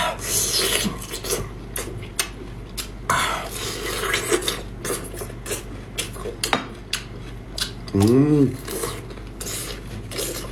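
Close-up eating sounds of seafood: chewing and slurping, with repeated small clicks and scraping of shells and dishes. A short hummed voice sound, rising then falling, about eight seconds in.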